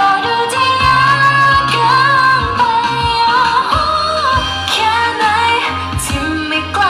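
T-pop song with female singing over a steady bass line and beat, played loud over a PA.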